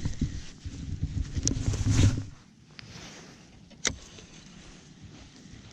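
Wind buffeting the microphone in a loud low rumble that dies down a little over two seconds in, leaving a quieter outdoor hiss, with one sharp click about four seconds in.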